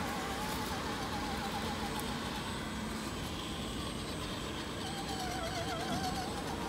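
Electric motor and drivetrain gears of an RGT EX86100 radio-controlled rock crawler whining as it creeps over a dirt trail, the pitch wavering up and down.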